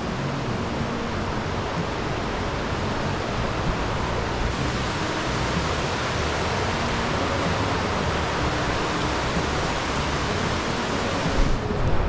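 Waterfall: a steady rush of falling water, growing a little brighter about four and a half seconds in.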